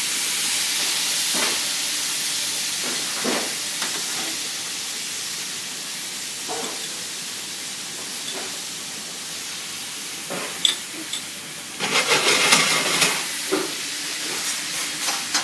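A hot pan of steak and wine sauce sizzling and steaming, starting suddenly as something goes into the pan and slowly easing, with a few knocks and scrapes of a utensil against the pan and a louder burst of sizzling about twelve seconds in.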